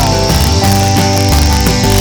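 Background music: a guitar tune of sustained notes, one bending down in pitch at the start.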